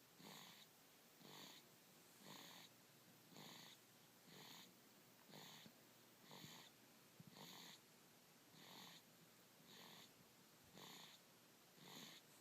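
Sleeping baby snoring faintly, a short raspy snore about once a second in a steady rhythm.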